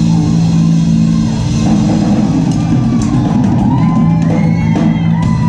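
Live band playing loud amplified music on drum kit and electric guitar.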